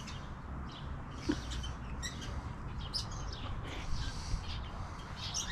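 Small birds chirping: short, high calls scattered throughout, over a steady low background rumble.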